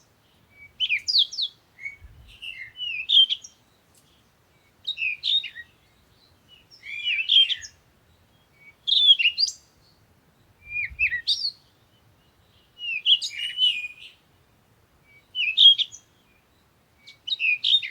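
A songbird singing short, twittering, varied phrases, about one every two seconds, with brief silences between them.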